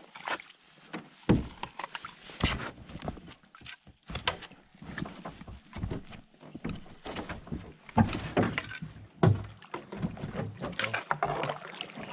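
Kayak being paddled through shallow, brushy water: paddle strokes splashing, with irregular knocks and scrapes of the paddle and hull against branches. A few sharp knocks stand out, one about a second in and two later on.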